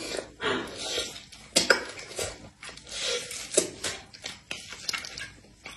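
Close-miked eating sounds: a mouthful of soft, cream-filled snow skin mochi being chewed, over irregular crinkles and light clicks from its plastic liner and tray being handled.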